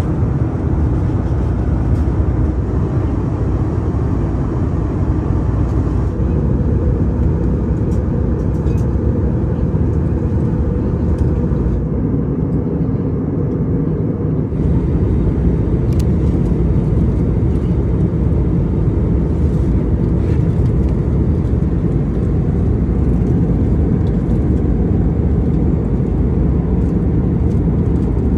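Steady, loud low rumble of an Airbus A321neo's engines and airflow heard inside the passenger cabin.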